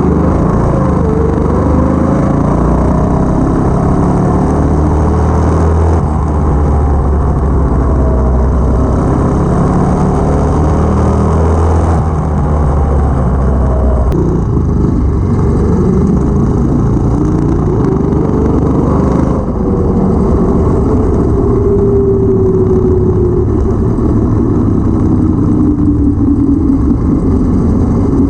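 Stage 1 212cc single-cylinder go-kart engine running under load while the kart is driven, its pitch rising and falling repeatedly with the throttle and speed.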